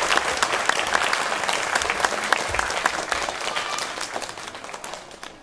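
Audience of schoolchildren clapping, a dense round of applause that fades away near the end.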